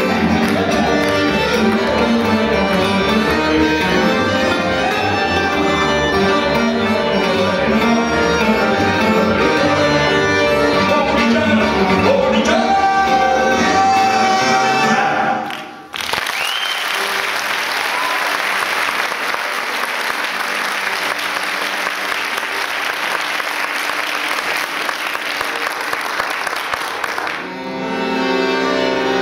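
Acoustic manouche (gypsy) band playing live, the music breaking off about halfway through. An audience then applauds for about ten seconds, with a short rising whistle just after the clapping starts. The band starts playing again near the end.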